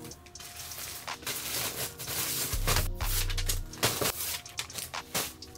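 Plastic poly mailer bags crinkling and rustling in quick irregular handling as a hoodie is packed and sealed, over background music with deep bass notes in the middle.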